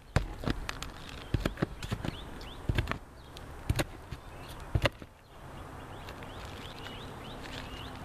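Claw hammer knocking on old roofing nails in the stripped roof deck to get rid of them: a series of sharp knocks, some in quick pairs, over the first five seconds, then a pause.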